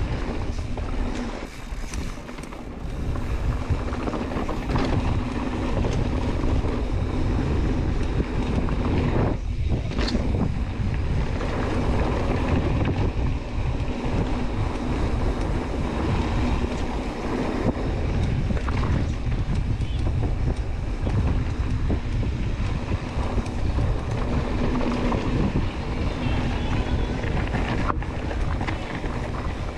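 Wind buffeting the microphone while a mountain bike rides fast down a dirt trail, its tyres rumbling over the ground in a steady, loud rush.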